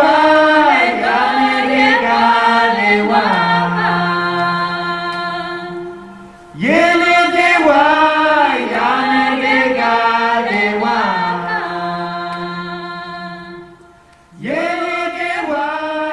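Choral singing played back loud through Viva Audio horn loudspeakers, in long sustained phrases. Each phrase swells in at once and fades slowly; new ones begin about six and a half seconds in and near the end.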